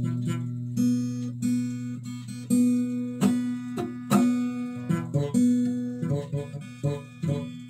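Acoustic guitar played by a beginner: chords picked or strummed about once a second, each left ringing, with a run of quicker plucked notes near the end.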